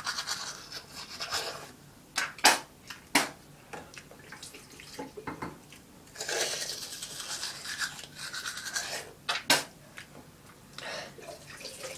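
Manual toothbrush scrubbing teeth in stretches of brushing, with a few sharp clicks between them.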